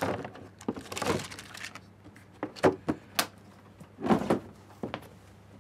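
A reel of recording tape being handled on a tape machine: a string of knocks, clunks and scrapes, spaced about a second apart.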